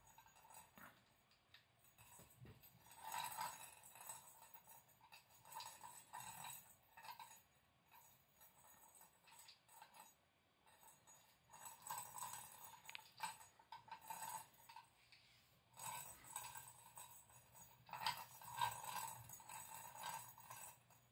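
Plastic roly-poly cat toy being batted by a cat's paw, rocking back and clinking with a light ringing tone in short spells, several times over.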